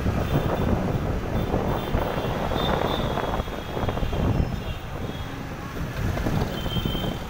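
Wind buffeting the microphone, with street traffic, from a moving scooter. A steady rush and rumble, with faint high tones coming and going.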